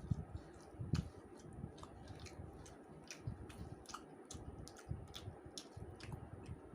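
A person chewing a mouthful of rice and fish curry close to the microphone, with many small wet mouth clicks and smacks coming irregularly.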